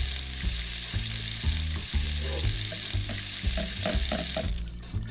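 Water running from a toy kitchen sink's tap onto a plastic fish as it is washed, a steady hiss that stops about four and a half seconds in.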